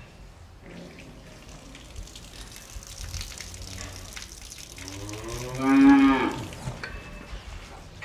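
A cow mooing once, a single long call about five seconds in that rises in pitch and then drops away at the end.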